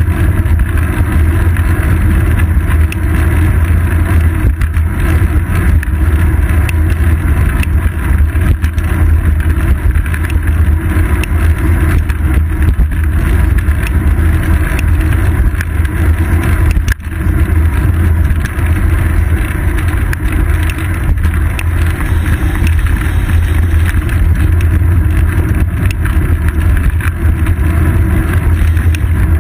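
Loud, steady rumble of wind and road vibration picked up by a GoPro Hero 2 camera in its housing, mounted on the seat post of a moving bicycle. A single click, with a momentary dip in the rumble, comes just past the middle.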